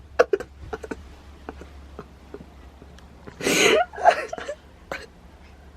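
A woman's breathy, wheezing bursts of laughter, two of them about three and four seconds in, after a few faint clicks.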